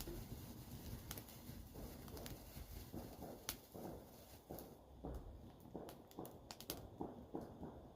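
Fire in a fireplace crackling quietly, with a few sharp pops over a busy low crackle.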